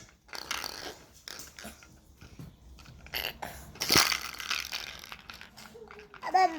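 Scattered clicks and knocks of a toy being handled, with one sharp click about four seconds in. A baby's short vocal sound comes near the end.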